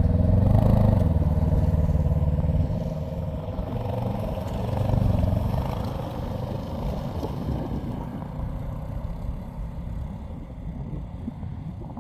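Snowmobile engine running, loudest in the first couple of seconds, swelling again about five seconds in, then growing fainter.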